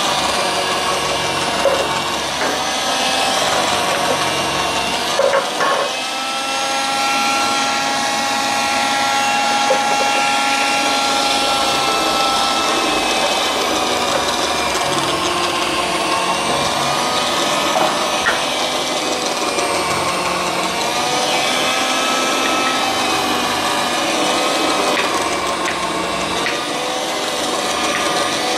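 Electric citrus press motor running steadily with a whine that dips and rises in pitch as orange halves are pressed down onto the spinning reamer, with a few light knocks of handling.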